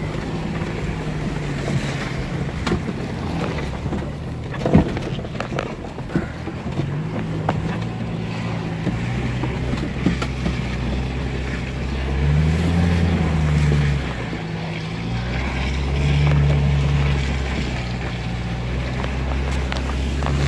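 Vehicle engine running, heard from inside the cabin while driving through slush and mud; it revs up and eases off several times. Scattered knocks from bumps along the way, the sharpest about five seconds in.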